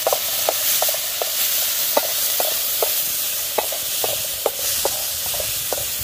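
Wooden spatula stirring shallots and tomato pieces in a metal pan, knocking against the pan about twice a second over a steady sizzle of frying in oil.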